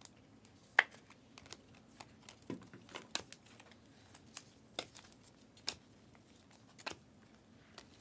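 Trading cards being handled and flipped through by hand: scattered light flicks and clicks, with a sharper snap about a second in.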